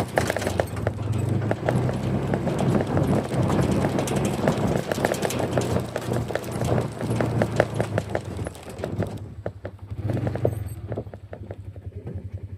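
Hooves clattering on hard ground as livestock walk, many quick knocks over the steady low hum of a running engine. The hoof knocks thin out about nine seconds in, leaving mostly the engine.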